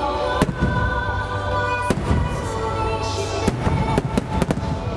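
Shakudama (10-go, about 30 cm) aerial firework shells bursting, several sharp booms over music, coming quicker near the end.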